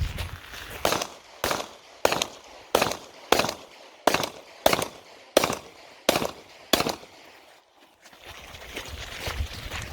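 A pistol being fired in a string of about ten shots, roughly one every two-thirds of a second, as a competitor shoots a timed practical-shooting stage; the shooting stops about seven seconds in.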